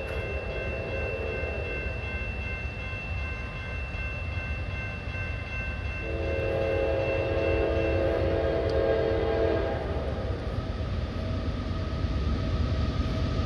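Air horn on the lead diesel locomotive of an approaching CSX double-stack freight train. One blast ends about a second and a half in, and a long blast of about three and a half seconds starts some six seconds in. Under both is the low rumble of the train, which grows gradually louder as it comes closer.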